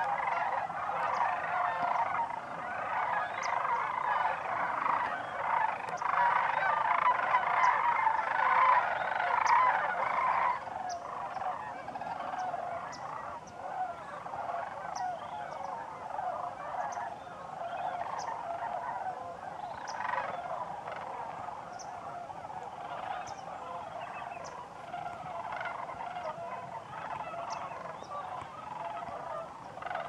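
A large flock of sandhill cranes calling in flight, many overlapping rolling calls at once. The chorus is dense and loud for the first ten seconds or so, then thins to fewer, more separate calls.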